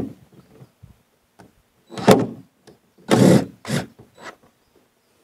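DeWalt cordless impact driver run in two short bursts about a second apart, with a few weaker blips after, backing screws out of the aluminium boat's floor.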